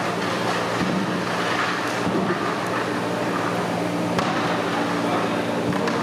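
Steady rumbling noise with a low hum underneath, like a running machine or fire draught, and two sharp knocks, about four seconds in and near the end, as a long metal ladle stirs a large aluminium cooking pot of curry.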